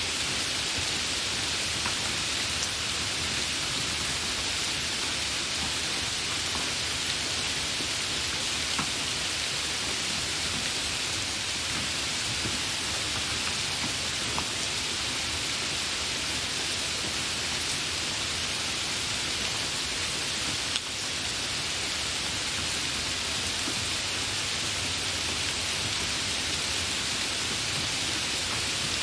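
Hard rain falling steadily, a dense, even hiss of drops with no let-up. A single sharp tick cuts through about twenty-one seconds in.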